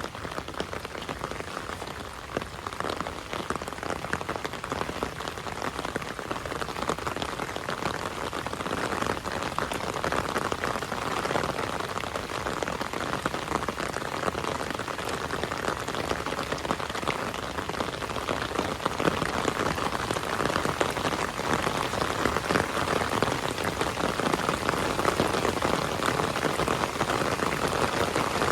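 Heavy rain falling: a dense, steady patter of countless drops that grows a little louder over the stretch.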